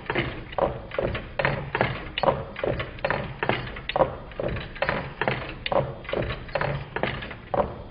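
Home-built twin-cylinder Meccano Stirling engine running, its displacers knocking as they land at each end of their travel: a steady, even rhythm of short knocks, about two and a half a second.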